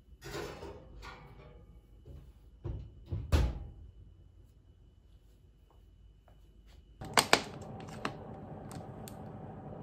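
Oven door being worked, with a scraping rattle in the first second, then two thuds as the door is shut around three seconds in. Later, over a steady hum, a plastic water bottle's cap is twisted with a few sharp clicks.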